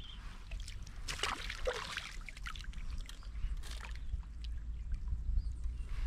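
Water splashing and sloshing beside a kayak as a hooked fish is fought close to the boat, over a steady low wind rumble on the microphone.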